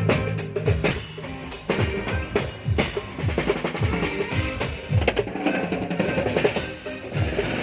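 Drum kit played in a steady groove, with bass drum and snare strokes in quick succession.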